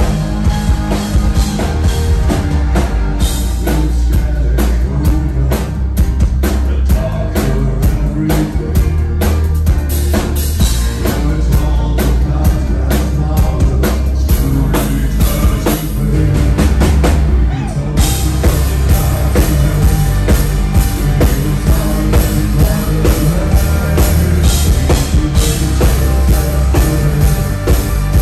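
Live rock band playing: drums, bass, electric guitars and keyboards, with a singer's vocals. The sound grows fuller and brighter about two-thirds of the way in.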